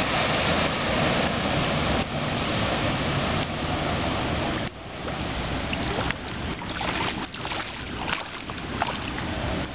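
Rushing, splashing noise of a flooded street, with vehicles driving through the standing water. About halfway through it drops suddenly and turns choppier, with short knocks.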